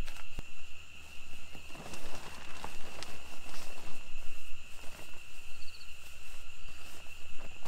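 Synthetic sleeping-bag fabric rustling and swishing unevenly as the bag is unpacked and spread out over a sleeping pad. A steady high insect drone runs underneath.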